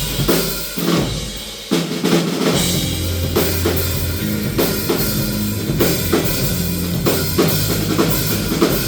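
Rock band music driven by a drum kit, with kick drum, snare and cymbal hits over steady low bass notes. The level dips briefly, then the full band comes back in just under two seconds in.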